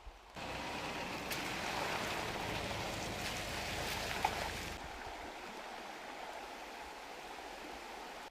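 Steady rushing of creek water in two stretches: louder for the first few seconds, then somewhat softer after a sudden change about five seconds in.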